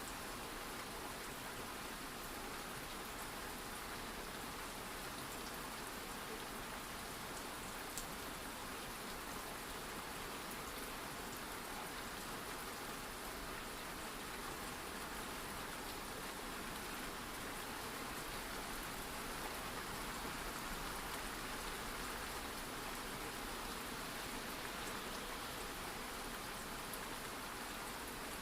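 Steady rain falling, an even wash of raindrops with no break, and one faint sharp tick about eight seconds in.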